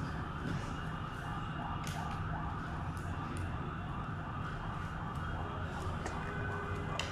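A siren sounding in repeated rising sweeps, over a steady low hum with a few faint clicks.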